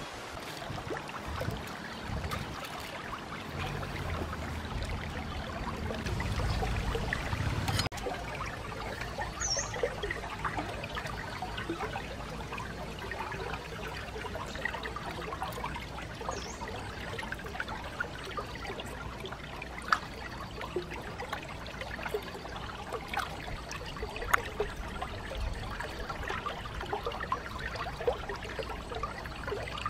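Shallow rocky stream trickling, with small splashes and drips as squid are rinsed and cleaned by hand in the water. A low rumble in the first several seconds stops abruptly about eight seconds in.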